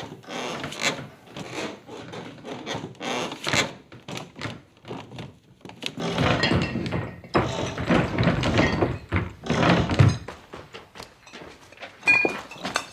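Heavy footsteps on a wooden staircase, performed by a Foley artist: a dense run of knocks and thuds, loudest and deepest from about six to ten seconds in.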